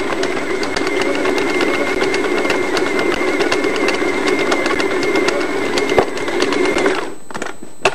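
Electric stand mixer running, kneading a stiff butter-and-semolina dough, with a steady motor hum, a high whine and quick clicking of the beater working the dough. It is switched off about seven seconds in.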